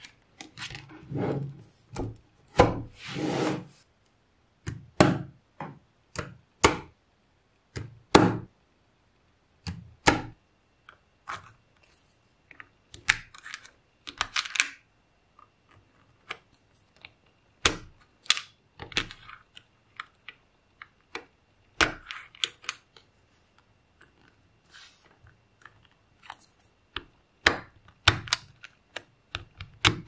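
Small magnetic steel balls clicking and snapping together and rasping against each other as they are handled, in irregular clusters of sharp clicks with short pauses between.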